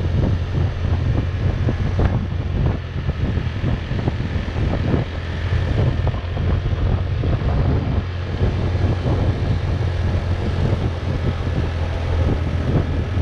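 Wind buffeting the microphone of a moving motorbike, over the steady low drone of its engine.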